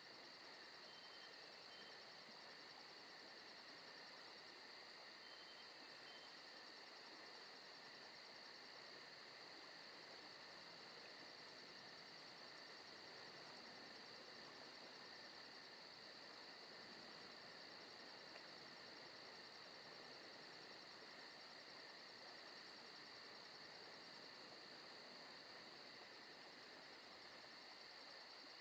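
Faint, steady chorus of crickets chirping: a continuous, fast, even trilling at a few constant high pitches.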